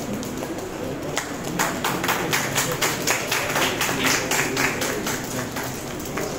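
Hand clapping: sharp, distinct claps at about four a second, starting about a second in.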